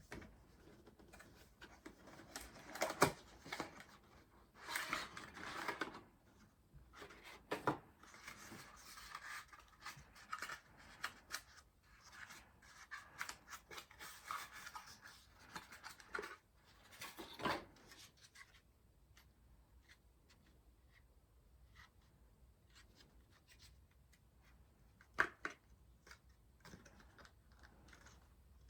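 Handling noises from fitting an Intel Core i5-12400F into a motherboard's CPU socket: scattered small clicks and scraping rustles, with a sharp click about three seconds in and another near the end. The handling is busiest in the first two-thirds, then thins out to occasional soft clicks.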